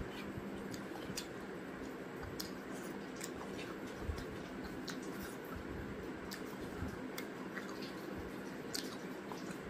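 Close-miked eating: chewing and fingers working curry on a plastic plate, with many soft, wet clicks and smacks scattered through. A steady low hum runs underneath.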